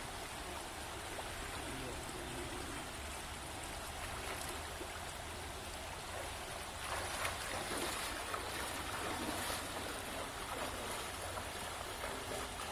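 Shallow river running over stones, a steady rush of water, with louder irregular splashing from about seven seconds in as someone wades through it.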